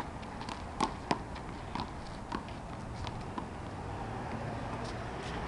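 Handball rally: a rubber handball smacked by hand, hitting the wall and bouncing on the asphalt court in a quick, uneven series of sharp slaps that stops about three and a half seconds in. A steady low hum runs underneath.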